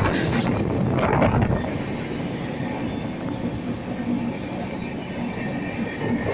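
Passenger express train running on the rails: a steady rumble with a few clattering knocks in the first second or so, then a quieter, even run.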